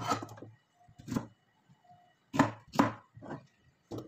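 Kitchen knife chopping a zucchini on a cutting board: about seven knocks of the blade striking the board at an uneven pace, some in quick pairs, with short pauses between.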